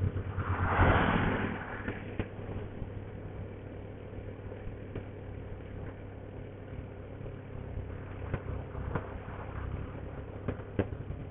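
Motorcycle engine running steadily at low road speed, with a brief rush of noise about a second in.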